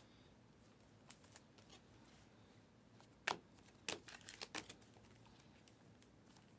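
Mostly near silence, with the faint slides and clicks of trading cards being handled and flipped: one sharp click a little after three seconds in, then a quick run of soft clicks about a second later.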